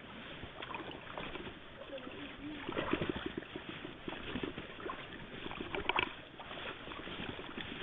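Shallow river water splashing and sloshing as people wade and sweep hand nets through it, louder in short spells about three and six seconds in.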